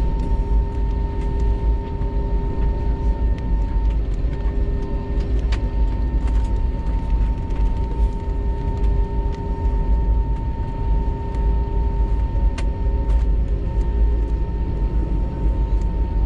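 Airbus A320 cabin noise while taxiing: the engines run at taxi power, a steady whine over a heavy low rumble, with a few sharp clicks or knocks.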